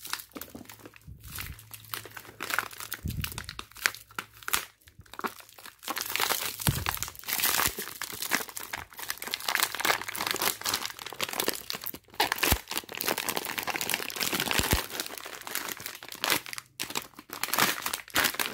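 Plastic wrap and tape being pulled and crumpled off a new camshaft: crackly crinkling that starts out sparse and turns dense and louder about six seconds in.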